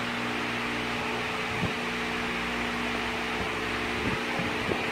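Steady electrical machine hum with a fan-like whir throughout, and a few light knocks in the last second as the steel mill stand and its rubber gasket are handled.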